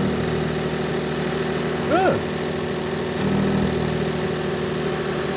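Smart ForTwo 451's three-cylinder engine idling with a blowing exhaust: gas is escaping at a joint in the exhaust that has not been welded. About two seconds in there is a short squeak that rises and falls in pitch.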